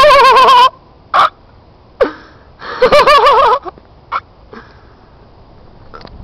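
1996 Honda Civic's front tyres squealing on asphalt as the car spins on plastic crates under its rear wheels. There are two long, warbling squeals about two and a half seconds apart, loud enough to distort, with short sharp chirps between and after them.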